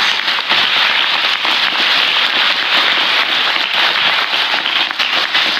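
Crowd applauding: many hands clapping together in a dense, steady round of applause.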